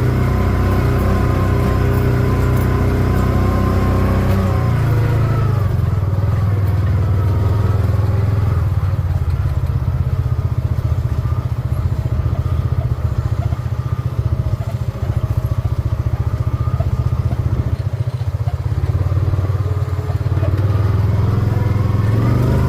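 A vehicle engine running steadily under way, with some rattle. The engine note eases about four seconds in.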